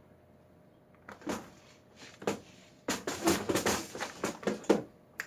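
Hard objects knocking and clattering on a workbench in a quick irregular run, the sound of someone rummaging among tools and lock parts, busiest near the end.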